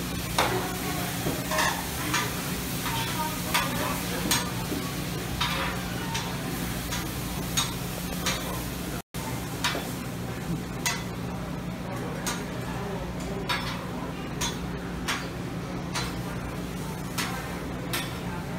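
Food sizzling on a large round Mongolian barbecue griddle while metal spatulas scrape and clack against the griddle surface in irregular strokes, over a steady low hum. The sound cuts out for an instant about halfway through.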